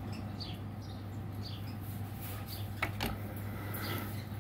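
Faint, short, high bird chirps repeating about twice a second over a steady low hum, with two sharp clicks about three seconds in.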